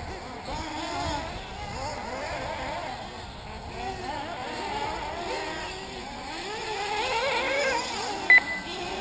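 Several 1/8-scale nitro RC buggies with small two-stroke glow engines running around the track, their high buzzing pitches overlapping and constantly rising and falling as they accelerate and brake. Near the end, a short, loud electronic beep.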